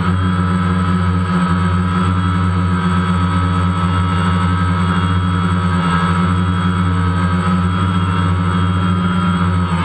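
DJI Phantom quadcopter's electric motors and propellers buzzing steadily while it hovers, heard from the GoPro camera on board, a hum of several tones that wavers slightly in pitch.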